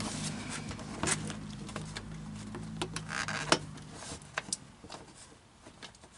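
Plastic wheel-well panel being pushed and worked into place by hand: scattered clicks and knocks of plastic, with a short scraping rustle about three seconds in. A low steady hum runs underneath and fades about four seconds in.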